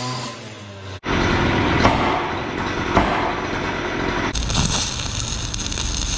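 Quick cuts of metalwork: an angle grinder's whine fades out, then a loud rumbling with two sharp metal knocks, and from about four seconds in the steady crackling hiss of an electric arc welder at work.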